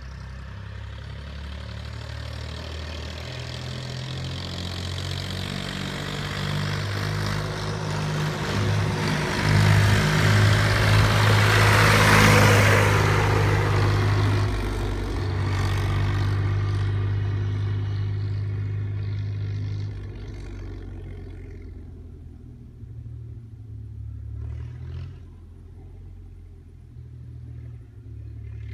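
David Brown 1190 tractor's four-cylinder diesel engine accelerating as the tractor drives past, its engine note stepping up and down in pitch a few times. It is loudest about halfway through as it goes by, then fades as it pulls away.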